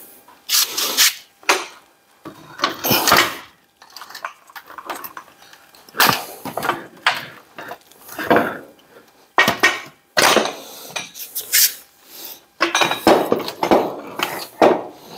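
Ford Model T rear axle housing being wrenched and wiggled off the differential: a string of irregular metal clanks and scrapes as the cast housing, gears and axle shaft knock together while it hangs up.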